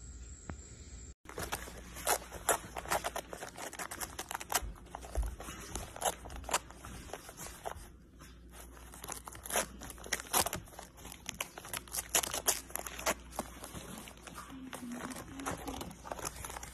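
Dachshund chewing and pawing at a foil-lined paper packet on a carpet, tearing it open: rapid crinkling and rustling with sharp crackles.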